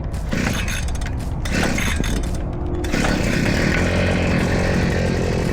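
Excavator's diesel engine running: clattering for about the first three seconds, then settling into a steady, higher-pitched engine note.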